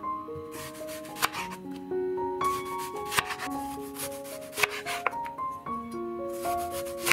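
Chef's knife slicing an onion into rings on a wooden cutting board: several crisp cuts, each ending in a tap of the blade on the board, over light piano background music.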